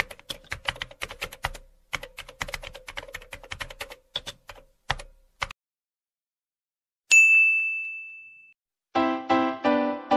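Keyboard typing sound effect, a quick run of clicks for about five seconds, then a single notification bell ding about seven seconds in that rings on and fades. Rhythmic keyboard-instrument music starts near the end.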